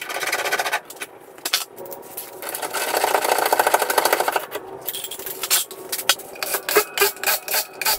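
A ratchet wrench clicking in quick runs as suspension bolts are tightened, with scattered metal clinks and knocks of tools and hardware.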